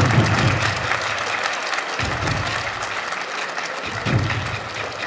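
Sumo audience applauding steadily, with low booming pulses roughly every two seconds underneath.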